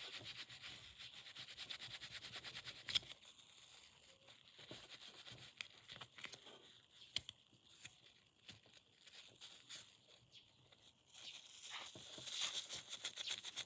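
Faint rubbing and scrubbing on a small plastic part of a Logitech M185 mouse as it is cleaned: quick repeated strokes for the first few seconds, then scattered light clicks and scrapes, and steadier rubbing again near the end.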